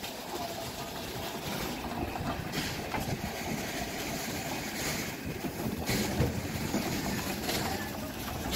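Great Eastern Railway 0-6-0 steam locomotive No. 564 (a J15) standing at a station platform. Its steady noise carries several short rushes of noise.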